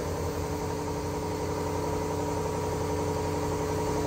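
An engine idling steadily: a constant drone that holds the same pitch with no changes.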